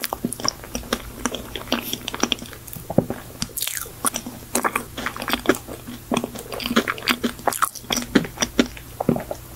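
Close-miked chewing of a mouthful of strawberry folding cake (sponge, cream and fresh strawberries): a dense run of irregular wet mouth clicks and smacks. Near the end she sips iced coffee from a glass.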